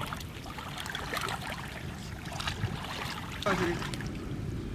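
Water sloshing and splashing as several people wade waist-deep through a shallow, weed-filled lake, with voices calling now and then.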